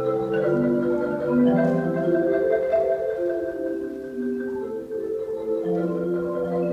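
Solo marimba improvisation played with mallets: overlapping sustained notes forming slowly shifting chords, low and middle notes sounding together.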